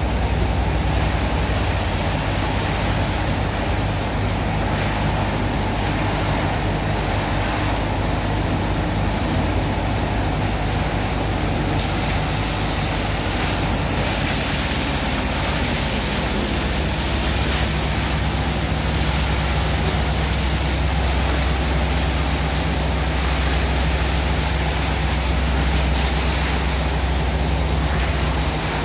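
Steady drone of a pump engine under a constant rush of water from hoses washing sand into slurry. The low hum grows stronger a little past halfway.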